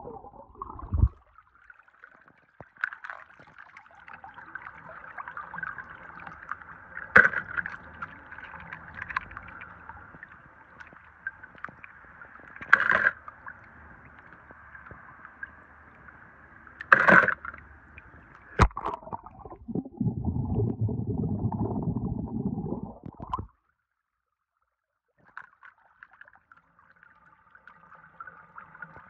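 Water sloshing and gurgling around wet toy cars, with a few sharp clicks as the die-cast toy cars knock together. A louder rush of water comes about two-thirds of the way through, then the sound cuts out completely for a second or so before the water resumes.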